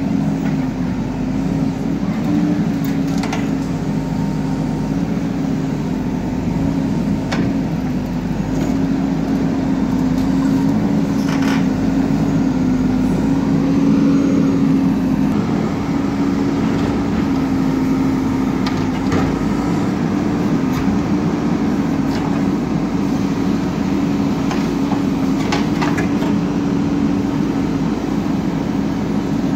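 Diesel engine of a bulldozer running steadily while it pushes and levels earth, with a few short clanks now and then.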